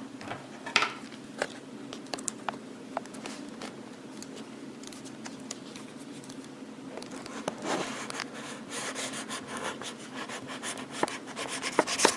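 A cardboard graphics-card box and its packaging being handled and opened by hand: scattered clicks and short scrapes, turning into denser rubbing and scratching over the last few seconds, over a steady low hum.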